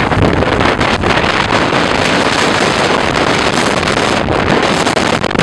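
Storm wind buffeting the microphone, a loud, steady roar of blizzard gusts.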